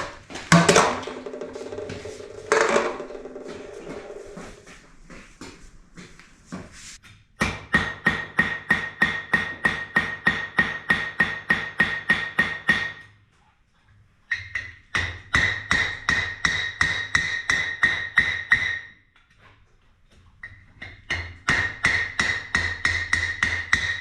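Hand hammer beating hot iron on an anvil, thinning and blending the edges of a forge-welded washer: three runs of quick, even blows, about four or five a second, with the anvil ringing under each, separated by short pauses. A single clang with ringing comes near the start.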